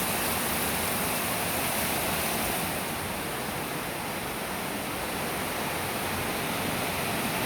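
Heavy rain falling hard: a steady, even rushing hiss.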